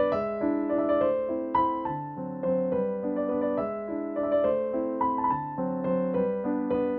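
Background music: a gentle piano tune, a light melody of separate notes over soft chords.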